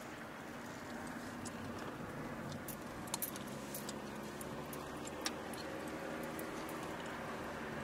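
Vehicle interior while driving: steady engine hum and road noise, with a few sharp light clicks about three seconds and five seconds in.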